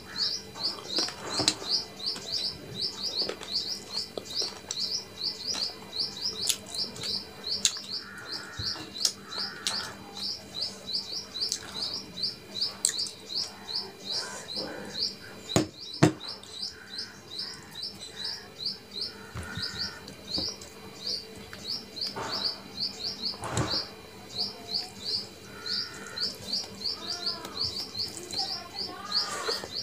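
Close-up eating sounds: wet chewing and lip smacks, and fingers mixing curry into rice, as short clicks and smacks. Behind them a steady run of short, high, rising chirps repeats about three or four times a second without a break.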